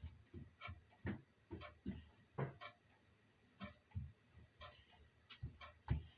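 Clock ticking: a run of faint, sharp clicks, about two or three a second, unevenly spaced.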